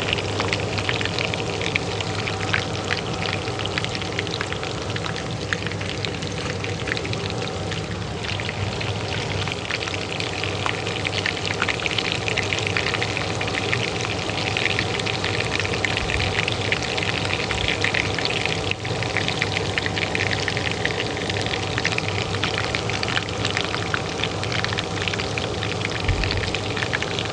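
Oil sizzling and crackling in a pan, with dense fine pops, over the steady hum of a kitchen range hood fan.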